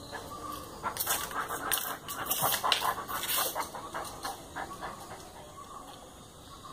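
Basset hound panting and snuffling as it mouths a pair of pliers on the floor. There is a quick run of short clicks and knocks from about one to three and a half seconds in, and it grows quieter toward the end.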